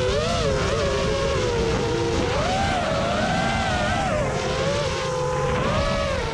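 DRP New Yorker brushless motors on a 6S FPV racing quadcopter spinning Gemfan Hulkie 5-inch props, a whine whose pitch rises and falls with the throttle and dips near the end. Wind and rumble from the onboard camera's microphone lie under it.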